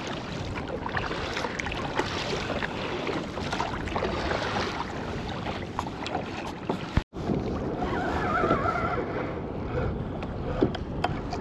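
Water lapping against a kayak hull with wind on the microphone, a steady noise that breaks off for an instant about seven seconds in.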